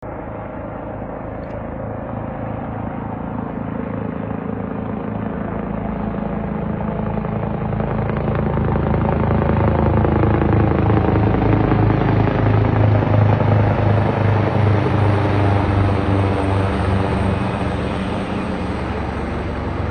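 Low-flying helicopter-like rotorcraft passing overhead: a steady rotor beat grows louder, peaks about two-thirds of the way through with its pitch falling as it goes past, then starts to fade.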